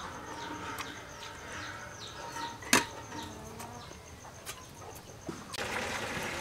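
Insects chirring as a steady pulsing high tone, with short faint high chirps over it. A sharp click sounds a little under three seconds in, and near the end the background jumps suddenly to a louder even hiss.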